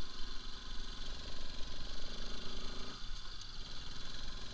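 Bajaj Pulsar RS200's single-cylinder engine running at low speed on a rough gravel track, under a steady hiss. The engine note drops about three seconds in.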